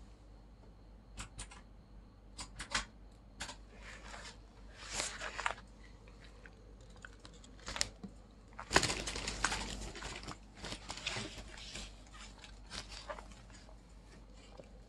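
Pages of a large paper book being turned and handled: a few sharp taps and short paper rustles, then a longer, louder rustle about nine seconds in.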